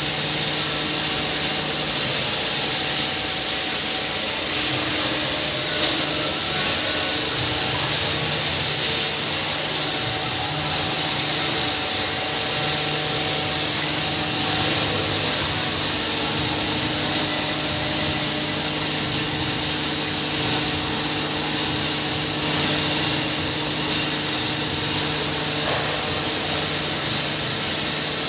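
Double-chamber hammer-mill pulverizer for maize running steadily: a constant loud mechanical drone with a steady low hum and a strong high hiss.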